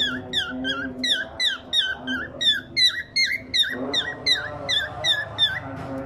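Male cockatiel whistling in a rapid, even run of short chirps, about three or four a second, each sliding in pitch, with a brief pause a little past the middle. A steady low tone runs underneath.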